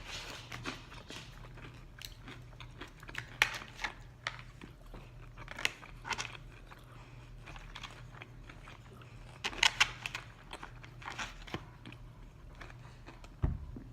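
Someone chewing and crunching crispy fried chicken close to the microphone: irregular crunches, with louder clusters about three, six and ten seconds in.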